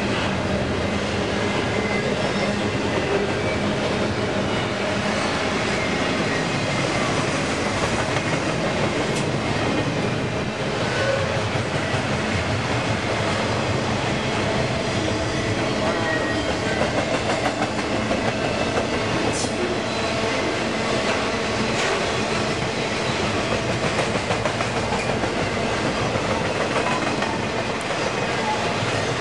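Double-stack container freight train rolling past at steady speed: a continuous, even noise of its cars and wheels running on the rails.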